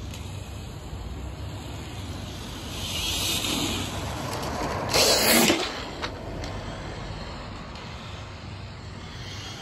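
A car driving past along the street, its sound building about three to four seconds in, followed by a short, loud hiss about five seconds in.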